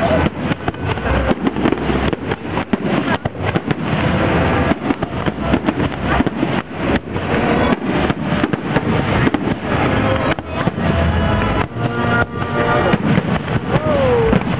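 Aerial fireworks going off in rapid succession: a continuous run of bangs and crackling bursts, with the shots packed closely together throughout.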